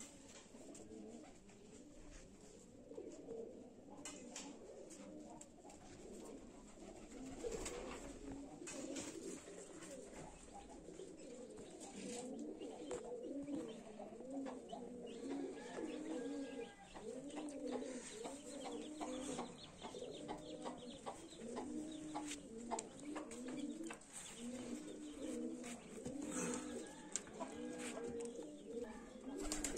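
Pigeons cooing over and over, several calls overlapping, with a few faint knocks now and then.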